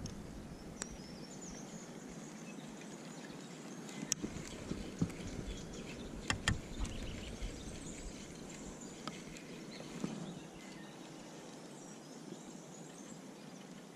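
Faint outdoor ambience by the water with distant birds chirping, broken by a few sharp clicks, the loudest about four seconds and about six and a half seconds in.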